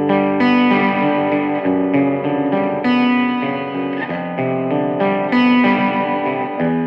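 Electric guitar played through a Peavey 6505+ tube combo's stock speaker on its green channel, with a digital delay on: a run of picked single notes and chords, a new note about every half second. Sharper picked attacks come about half a second, three and five and a half seconds in.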